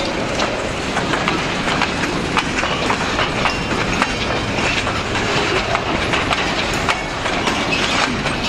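Freight train of boxcars and a covered hopper rolling past: a steady rumble of wheels on rail, with repeated clacks as the wheels cross the rail joints.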